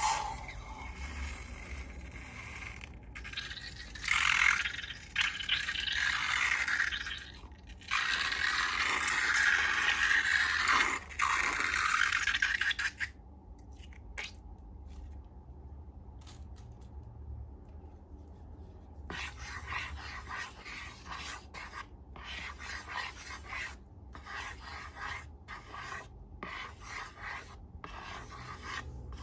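Close-up scraping and rubbing of slime-making materials, in loud stretches for the first half, then a run of short, quick strokes after a quieter spell.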